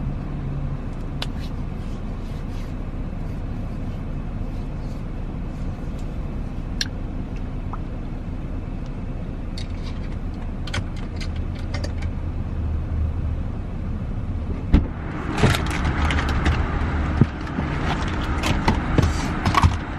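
Steady low hum of a car, heard from inside the cabin, with a few faint clicks. About three-quarters of the way through comes a single sharp knock, followed by several seconds of rustling and clattering.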